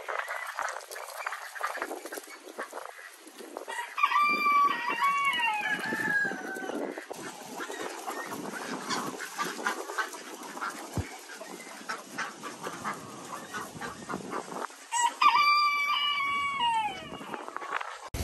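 A rooster crowing twice, about four seconds in and again near the end, each crow a long call that holds its pitch and then falls away at the end.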